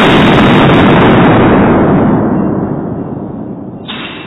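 Very loud gunfire in an indoor shooting range. A blast at the opening overloads into a wash of noise that holds for about two seconds, then fades, and a second sharp report comes near the end.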